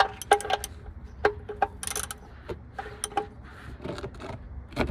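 Ratchet wrench clicking in short irregular bursts of sharp metallic clicks as a bolt is tightened during an oil change.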